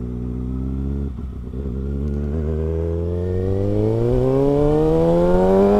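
Kawasaki ZX-6R 636's inline-four engine running at low revs, then from about a second and a half in pulling in one gear, the revs rising smoothly and getting louder as the bike accelerates.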